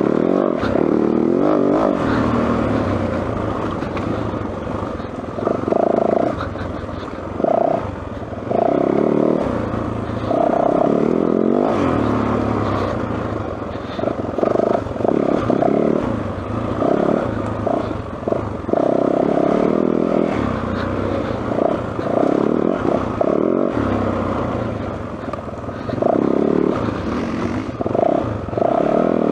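Yamaha WR450F single-cylinder four-stroke enduro motorcycle being ridden along a trail, the engine note rising and falling with repeated short bursts of throttle.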